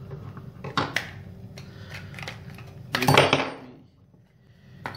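Metal scissors clicking and snipping at a clear plastic tool package, with a louder crackle of the plastic about three seconds in.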